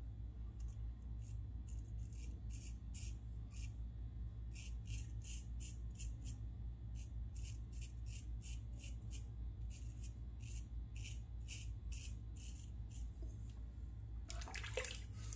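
Shavette razor scraping through lathered stubble in short repeated strokes, about two or three a second. Near the end comes a brief rush of water as the razor is rinsed under the tap.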